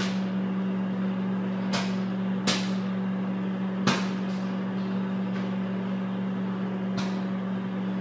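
Consul microwave oven running with a steady hum while popcorn kernels pop inside a closed paper bag. There are a few sharp, separate pops at uneven intervals, the clearest about two, two and a half and four seconds in, and a fainter one near the end.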